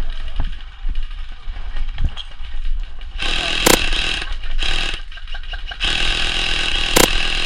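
Electric airsoft support gun firing long full-auto bursts, a rapid buzzing whir. The first burst comes about three seconds in and lasts about a second and a half; a second starts near the six-second mark and keeps going. Two sharp cracks are heard during the firing.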